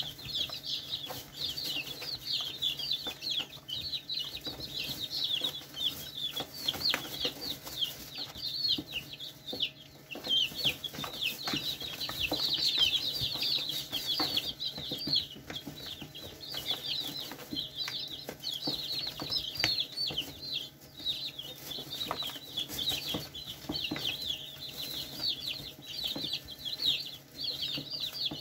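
A brood of young chickens peeping: a dense, continuous chatter of short high peeps, many overlapping, a little louder about twelve seconds in.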